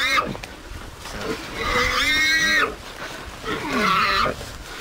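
Feral hog squealing while held by the ears by catch dogs: long, high-pitched squeals about every two seconds.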